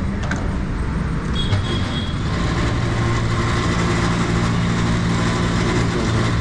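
Petrol dispenser pump motor humming steadily as petrol is pumped into a scooter's tank. The hum sets in about two and a half seconds in, after a brief click, over street traffic noise.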